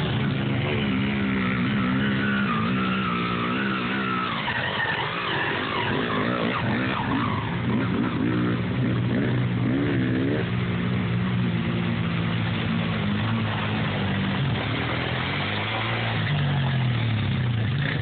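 Off-road engines revving as a two-stroke dirt bike and ATVs ride through a shallow creek, with water splashing. The engine pitch keeps rising and falling, sometimes two engines at once.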